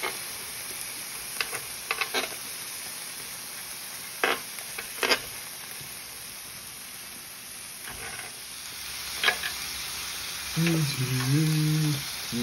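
Beef slices, cabbage and onion sizzling on a hot plate in a steady hiss. Metal tongs and chopsticks click against the plate a few times as the food is turned.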